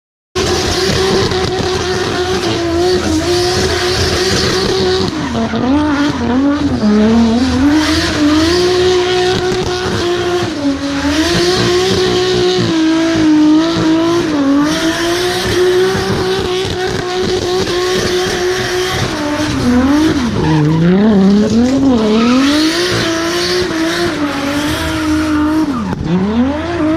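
Drift car engine held at high, steady revs while the tyres squeal. The revs dip and climb back several times: a few seconds in, about two-thirds of the way through and near the end.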